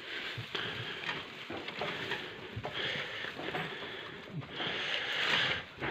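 Alfalfa hay rustling and crackling as it is pushed and spread by hand in a wooden rail feeder, in a run of short uneven scrapes that grows louder about four and a half seconds in.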